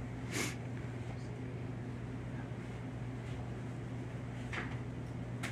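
Quiet room tone with a steady low hum. A few brief rustles or soft knocks come about half a second in and again near the end.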